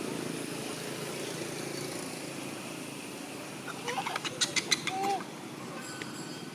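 Steady low background rumble, with a brief run of sharp, high animal chirps about four seconds in.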